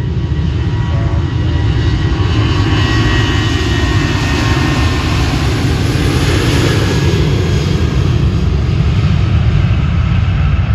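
Southwest Boeing 737's jet engines running loud: a heavy, steady rumble with a faint high whine, swelling a little around the middle.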